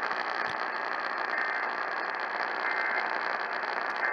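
Steady radio receiver static hiss, with a faint click about half a second in.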